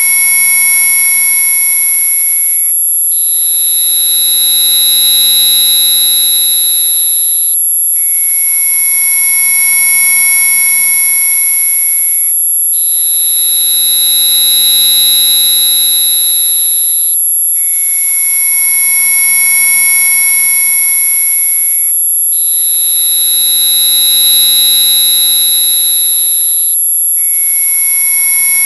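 Synthesized mosquito-repellent tone audio: a loud mix of steady high-pitched electronic tones over a very high whine. It switches back and forth between two tone sets about every four and a half seconds, with a short break at each change.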